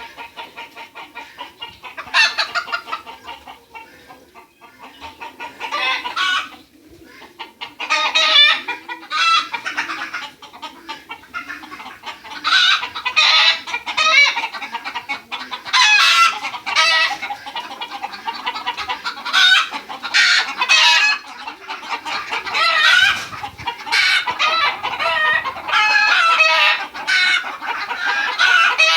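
A flock of chickens clucking and calling, many voices overlapping continuously, growing busier in the second half.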